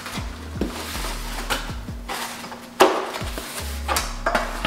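Cardboard packaging being handled and pulled open: rustling with several short clicks and a sharp knock about three seconds in, under soft background music.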